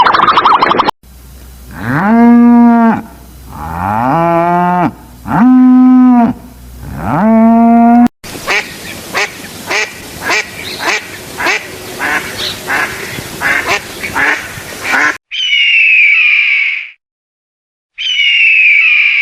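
Four long moos from cattle, each sliding up in pitch and then holding. These are followed by a fast run of duck quacks, about three a second, and near the end by two short, high, downward-sweeping animal calls.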